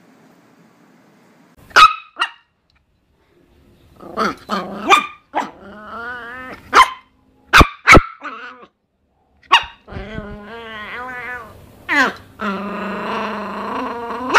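Miniature pinscher barking and growling: about ten short, sharp barks, broken up by three longer growls, the last of which carries on to the end.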